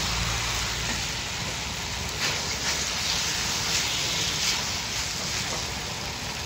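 Rice noodles stir-frying in a large metal wok: a steady sizzle, with the spatula scraping and tossing the noodles several times.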